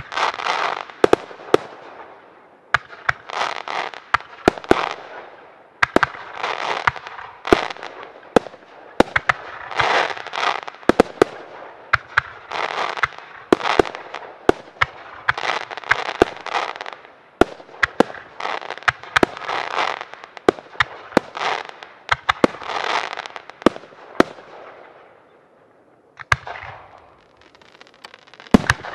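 Professional fireworks display: a rapid series of sharp launch and burst bangs over rushes of hissing noise that come every second or two. It thins out near the end, then comes one loud bang.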